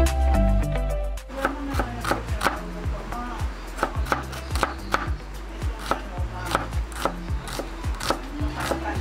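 Kitchen knife slicing a red onion on a plastic cutting board, the blade tapping the board about twice a second. Background music is loud at first and drops lower about a second in, when the slicing starts.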